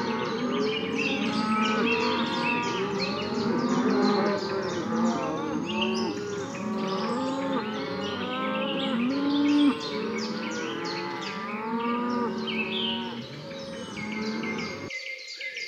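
A herd of cattle mooing, many low calls overlapping one another without a break.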